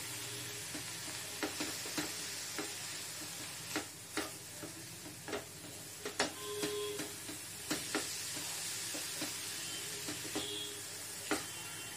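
Onion, capsicum and spiced tomato masala frying in a nonstick wok with a steady sizzle, stirred with a silicone spatula that scrapes and taps against the pan at irregular moments.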